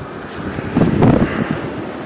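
Wind gusting on the microphone, loudest about a second in.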